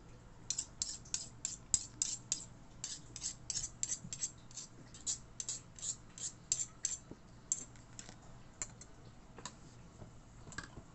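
A run of quick, light clicks, about three a second, thinning out after about seven seconds.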